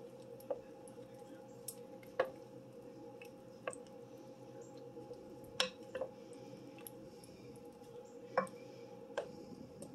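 Wooden spoon stirring a thick, creamy gnocchi and chicken mixture in an enamel pot: soft squelching with about seven light taps of the spoon against the pot, over a faint steady hum.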